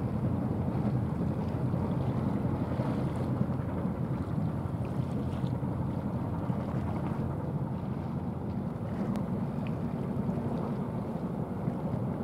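Steady low drone of a small coastal container ship's diesel engine as it passes close by, with the wash of its wake and wind on the microphone.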